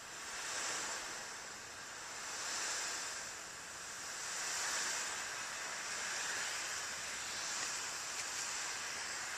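M83 smoke grenade hissing as it burns and pours out white smoke, a steady rush that swells and fades every couple of seconds.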